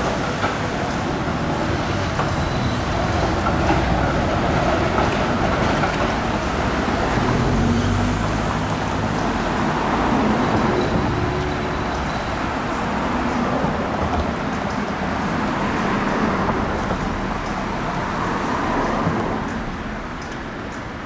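Busy city street traffic, with vehicles driving past one after another so that the noise swells and eases several times, then drops off a little near the end.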